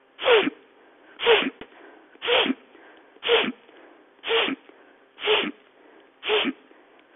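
A woman's forceful sniffing in-breaths through the nose, one about every second, seven in a row: quick strong nasal inhalations with passive out-breaths, a rhythmic breathing exercise for lung capacity.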